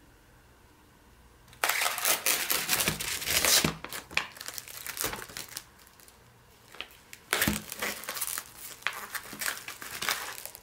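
Clear plastic film crinkling as it is peeled back by hand off a sealed plastic meat tray. It comes in two spells, the first starting about a second and a half in and the second after a short lull past the middle.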